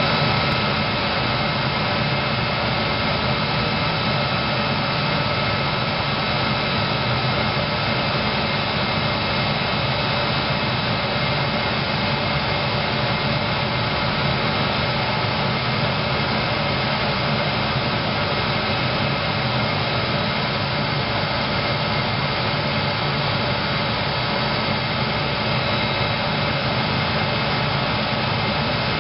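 Epilog laser engraver running as it etches a knife handle: a steady mechanical whir with a few fixed whining tones over it.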